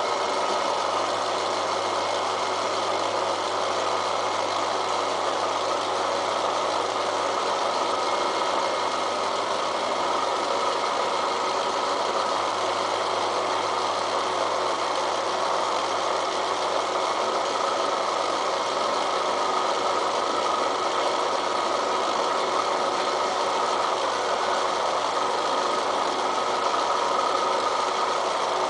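Milling machine running steadily under load, its cutter taking a cut across the steel of a railroad-rail anvil.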